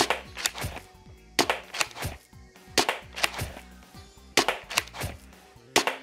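Worker Seagull pinky-prime spring foam dart blaster fired five times in quick succession, about one shot every second and a half. Each shot is a pair of sharp clacks about half a second apart.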